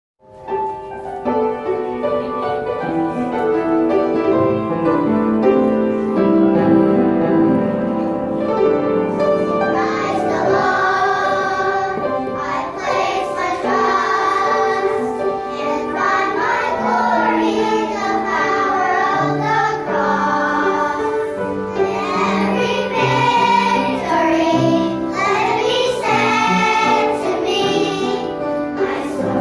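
A children's choir singing with instrumental accompaniment. It opens with held instrumental notes, and the children's voices come in about ten seconds in.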